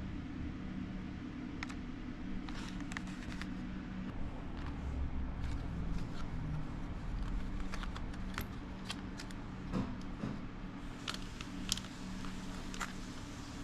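Scattered light clicks and taps, a few louder ones near the end, over a steady low hum.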